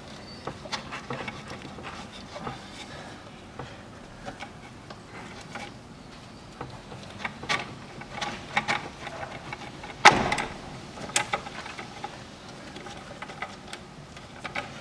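Scattered clicks and clanks of hand tools and metal parts being handled, with one sharp knock about ten seconds in and a lighter one about a second later.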